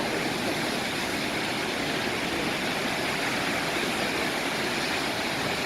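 Steady roar of ocean surf breaking on the shore, a constant rushing noise with no single wave crash standing out.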